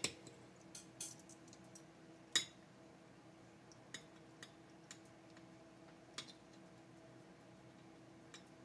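Sparse light metallic clicks and clinks of small tools and parts being handled, the loudest about two and a half seconds in, over a faint steady hum.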